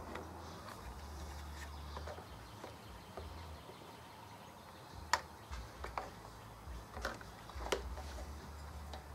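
Plastic air-filter cover on a Briggs & Stratton lawnmower engine being handled and pulled off: a few light plastic clicks and taps, the sharpest about five seconds in and near eight seconds.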